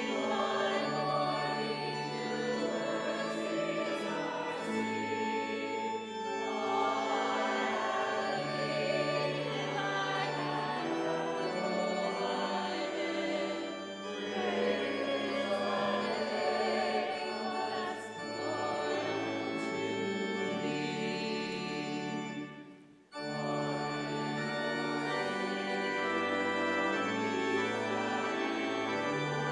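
Congregation singing a hymn with organ accompaniment: held organ chords under many voices. There is a short break in the music about three-quarters of the way through, between phrases or verses.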